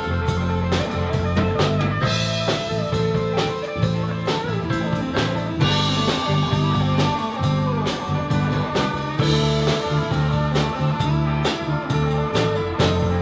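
Live blues band playing an instrumental passage: guitar lines with bent notes over steady bass and regular drum kit strikes.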